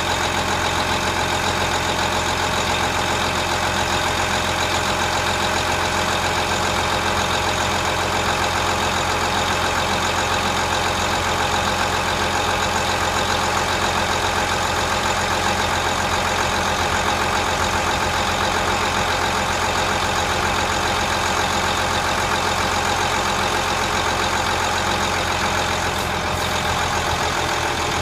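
Blue Bird TC2000 school bus's rear-mounted Cummins 8.3 inline-six diesel idling steadily after a cold start.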